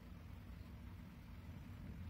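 Faint room tone: a low steady hum with light hiss and no distinct handling sounds.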